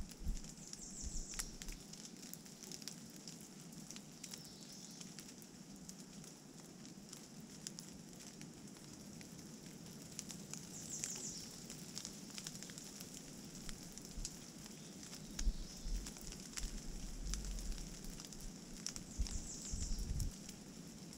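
Rain pattering and dripping on leaves and gravel, with scattered sharp drip ticks. From about two-thirds of the way in, wind buffets the microphone in low gusts. A short, thin, high-pitched bird call sounds three times: near the start, in the middle and near the end.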